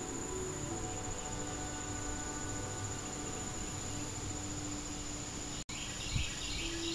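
A steady high-pitched insect trill over soft background music of long held notes. The sound drops out for an instant about five and a half seconds in, and a quick run of repeated chirps follows near the end.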